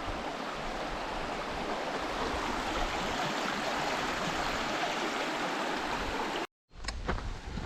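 Shallow river running over a rocky bed, a steady rushing sound; it cuts off abruptly near the end, followed by a few faint knocks.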